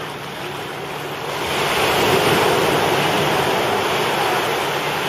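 Motorboat towing an inflatable banana boat across the water: a rush of water and wind over a low engine hum, which swells about a second and a half in as the boat comes closer.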